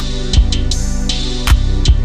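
Background music with a steady drum beat: deep kick-drum hits and sharp cymbal strikes over a sustained bass line.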